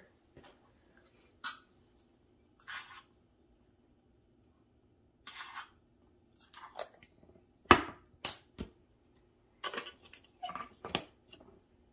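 Measuring spoon scooping baking powder from a can and leveling it off, with scattered light scrapes and a few sharp clicks and taps of the metal spoon against the can and bowl; the loudest click comes about two-thirds of the way through.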